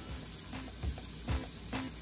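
Background music with a beat of short, pitched notes.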